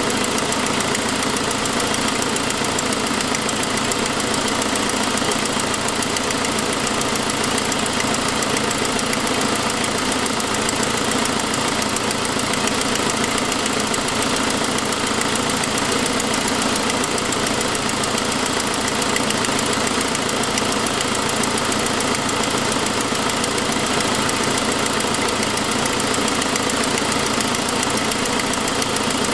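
2006 Saab 9-5's turbocharged engine running steadily, with a noise that could pass for lifter tick. It comes from an exhaust leak at the header, where the forwardmost exhaust manifold stud has broken.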